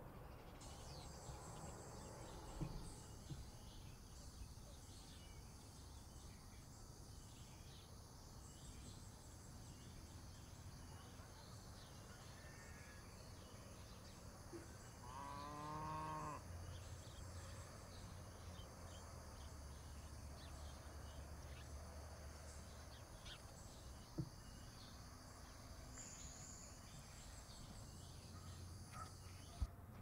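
Faint, steady high-pitched insect drone. A cow moos once about halfway through, and there are a few isolated clicks.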